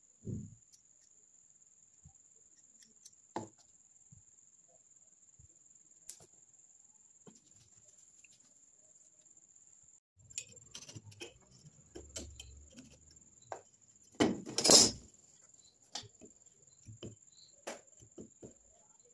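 Scattered light taps and handling noises of hand tools being worked over a wooden board, with one louder, longer noise about three-quarters of the way through, over a steady faint high-pitched whine.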